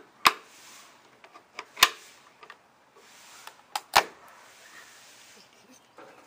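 Three sharp knocks, about a second and a half to two seconds apart, with a few fainter ticks between them, over a faint steady hiss.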